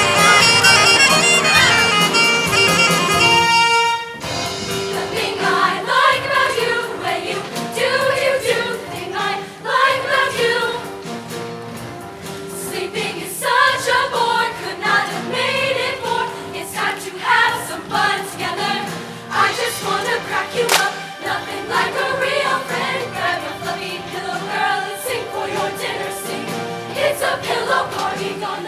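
A loud held chord that breaks off sharply about four seconds in, then a choir singing over band accompaniment.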